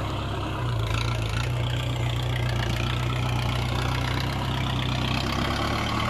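Kubota tractor's diesel engine running as the tractor moves across the field. The engine note rises a little under a second in and eases back near the end.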